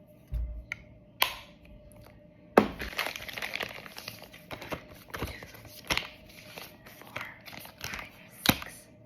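Packaging being handled during unpacking: crinkling and tearing with sharp cracks and snaps, a dull thump just after the start and a loud crack about two and a half seconds in.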